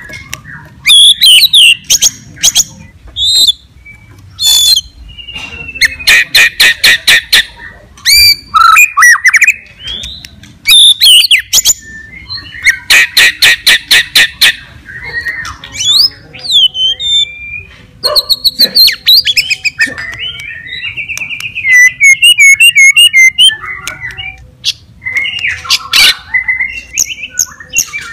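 White-rumped shama (murai batu) singing loudly in a varied run of whistled phrases and pitch glides, broken twice by long, rapid rattling trills.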